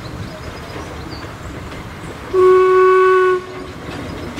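A locomotive sounds one short warning blast, a steady chord of about a second, over a constant background noise.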